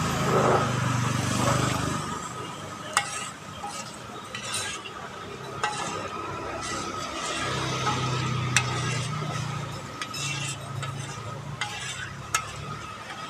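A perforated metal skimmer stirring hot frying oil in a large metal wok, with about five sharp metal clinks of the skimmer against the wok and a faint sizzle of the oil. A low hum runs underneath at times.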